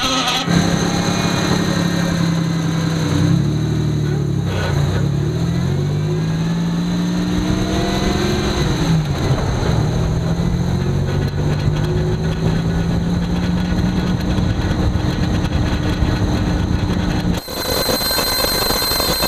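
Front axle of a 1989 Toyota pickup running in four-wheel drive: a steady pitched drone that slides up and down with road speed over a rushing noise. This is the front axle noise that appears only in 4WD. The sound changes abruptly near the end.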